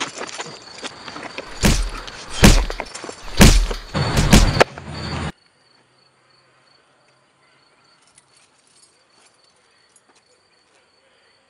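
A rapid run of loud smacks and thuds from a staged fist fight, four heavy hits among them, which cuts off suddenly about five seconds in. After that only faint, steady insect chirping remains, like crickets.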